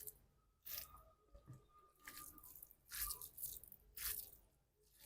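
Chewing and mouth sounds of someone eating, a series of short crunchy bursts every half second or so.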